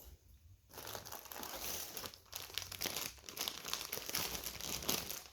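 Packaged food pouches crinkling and rustling as they are handled and sorted, starting after a short click in the first second and running on in dense, irregular crackles.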